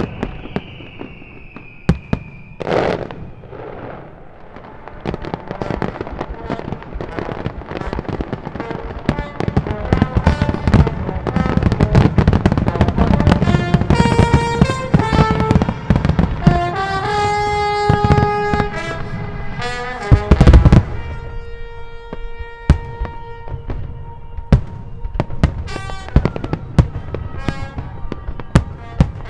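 Aerial fireworks display: a steady run of shell bursts, reports and crackling over show music. A falling whistle sounds in the first two seconds, and a single heavy boom, the loudest sound, comes about twenty seconds in, while the music holds long notes.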